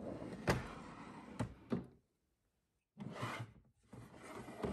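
A loaded drawer sliding shut, with a few knocks as it goes home, then another drawer sliding out near the end.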